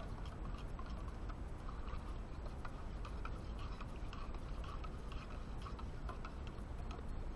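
A spoon stirring coffee in a mug, clinking against its sides in quick, uneven ticks over a low steady rumble.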